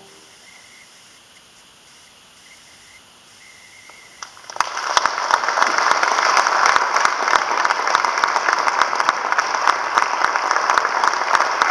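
The tail of a trombone ensemble's final chord fades into a few seconds of quiet. About four and a half seconds in, an audience starts applauding, and the clapping carries on steadily.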